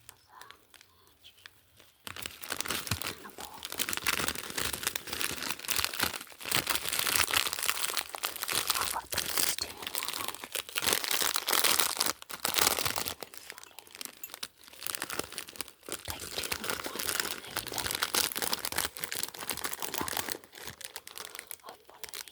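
Packaging being handled and opened: irregular crinkling and tearing with sharp crackles. It starts about two seconds in and goes on, with small pauses, to the end.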